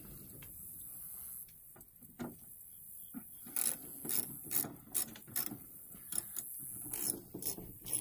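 Sharp metal clicks and clanks of hand work on the Gleaner combine's parts beside the cab, starting a few seconds in and coming irregularly about twice a second; the combine's engine is not running.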